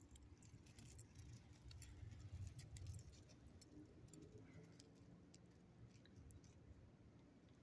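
Near silence, with faint, irregular small clicks and ticks, most of them in the first few seconds.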